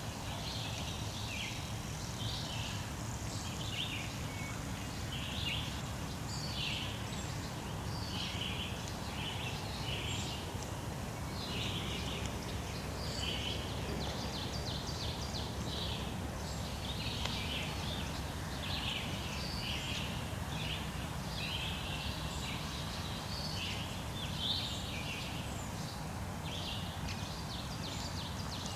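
Birds chirping repeatedly, short high calls every half second to a second, over a steady low rumble of outdoor background noise.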